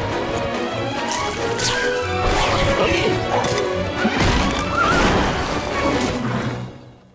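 Cartoon soundtrack: music with crash and impact sound effects mixed over it, fading away shortly before the end.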